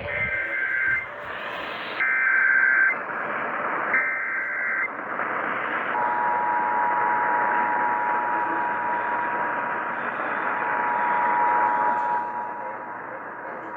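Emergency Alert System signal received over radio through steady static. The digital SAME header sounds three times as one-second two-tone data bursts about a second apart, and then the two-tone attention signal holds steadily for about seven seconds. The signal opens an emergency alert, here a tornado warning.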